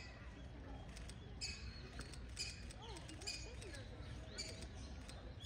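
A bird calling in short, high chirps, repeated about once a second, over a steady low background hum.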